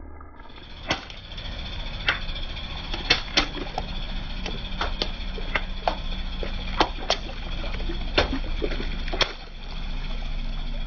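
Water balloons bursting one after another under a slowly rolling car tyre: about fifteen sharp pops over some eight seconds, with water splashing. The car's engine runs low and steady beneath.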